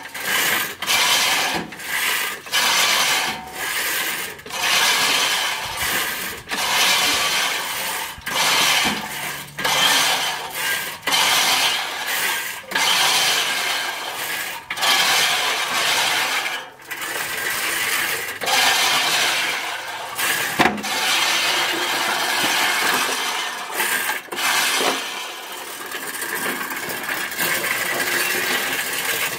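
Sun Joe reel lawn mower cutting tall grass, its blades whirring and snipping in repeated surges about once a second, with each push.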